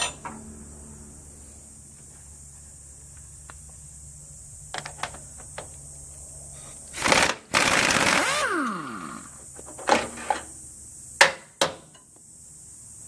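Power tool run in two short bursts, then winding down with a falling whine as it is released, followed by a few sharp metal knocks.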